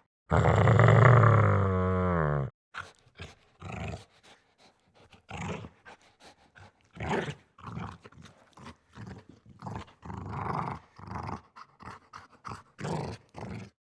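Dog growling: one deep, loud growl lasting about two seconds that drops in pitch as it ends, followed by a string of short, quieter growls at irregular intervals.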